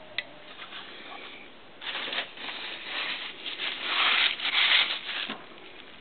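A cloth rubbing and wiping across the freshly milled aluminium face of a motorcycle cylinder head: an irregular scrubbing noise that starts about two seconds in and stops shortly before the end. A single sharp click comes just after the start.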